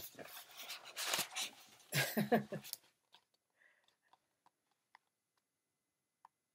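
Rustling and handling of a picture book's stiff paper pages being turned and lifted, with a brief voiced sound about two seconds in; after that, near silence with a few faint clicks.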